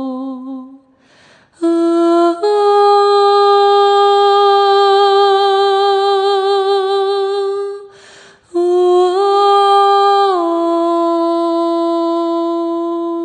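A single voice singing long sustained notes a cappella, with a slight vibrato and no words. After a short breath it steps up a little and holds one note for about five seconds; after a second breath it rises briefly and then settles back to a long held note.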